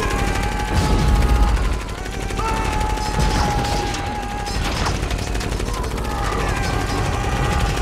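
Film battle sound effects: rapid automatic gunfire and explosions, loudest about a second in, with a steady high tone held underneath in long stretches.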